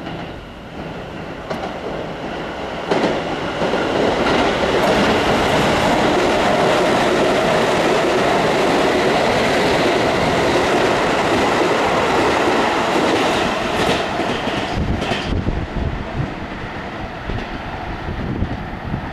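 Keisei Type 3600 electric train running through a station at speed without stopping. Its rushing wheel-and-rail noise builds as it approaches, stays loud for about ten seconds as the cars pass close by, with a few sharp clacks, then drops away to a low rumble as the train clears.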